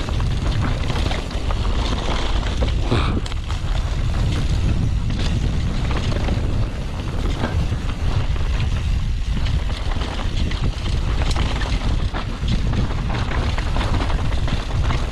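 Wind buffeting the camera microphone as a low rumble while a mountain bike rides fast down a dirt trail, with tyre noise on dirt and roots and frequent short rattles and knocks from the bike.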